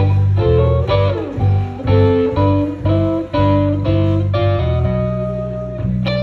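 Live blues band with an electric guitar playing a solo of single notes and chords over a steady bass line. One note bends downward about a second in.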